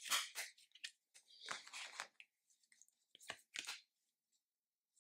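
Tarot cards slid and laid down over a spread of other cards: several short papery swishes and light taps.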